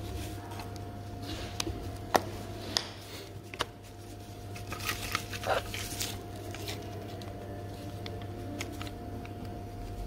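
A few sharp plastic clicks and light rustling as the halves of a BMW key fob's plastic casing are handled and pressed together by gloved fingers, over a steady low hum.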